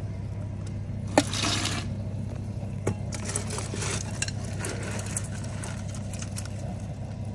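Propane burner under a large crawfish-boil stockpot running with a steady low hum. Over it come a couple of sharp clinks, one about a second in and one near three seconds, plus a short hiss and light clatter.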